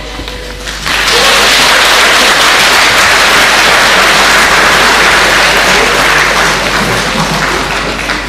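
Audience applauding, breaking out about a second in and easing off slightly near the end.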